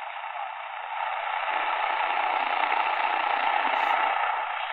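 Hiss and static from the Sony ICF-SW7600GR's speaker on the AM band, growing louder about a second in as a passive loop antenna beside it is tuned to the station, with faint station audio under the noise.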